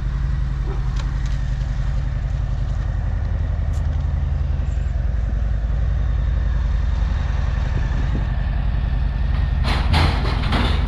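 Harley-Davidson V-twin motorcycle engine idling steadily with an even low pulse. A short rush of noise comes near the end.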